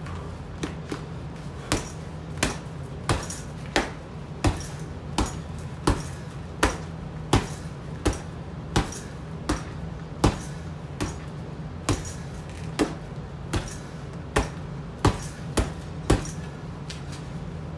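Boxing gloves punching down into a heavy bag lying on the floor: a steady series of thuds, about one every two-thirds of a second, stopping a little before the end.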